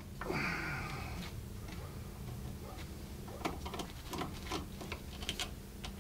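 Small metallic clicks and taps from a screwdriver and small parts being handled on a carburetor held in a bench vise. A brief scrape comes at the start, and the clicks bunch up in the second half.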